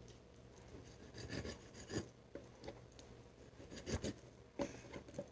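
Knife scraping and cutting at raw chicken wings to trim them into chicken lollipops: irregular, faint rasping scrapes with a few sharper knocks.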